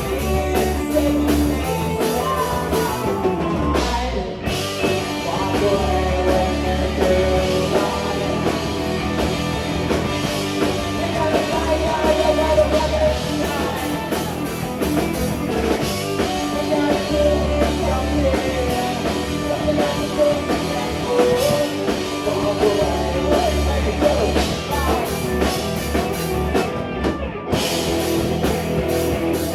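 Live rock band playing a song with a singer, drum kit, electric guitar and bass. The playing drops out briefly twice, about four seconds in and again near the end.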